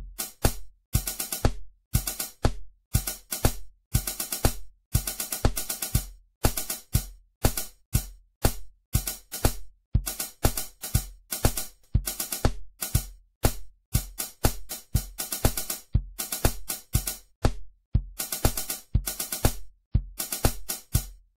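Snare drum playing a subdivision exercise: quick strokes in eighth- and sixteenth-note groupings broken by rests, over a steady low beat twice a second (120 beats per minute).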